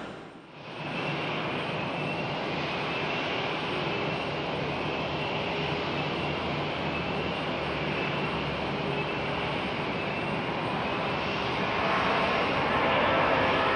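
Airbus A330 jet engines running, a steady roar with a faint high whine, growing louder near the end as the aircraft comes closer.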